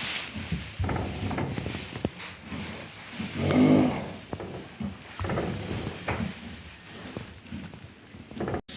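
Horse sounds close by, with one brief pitched call about three and a half seconds in, the loudest moment. The sound drops out for an instant near the end.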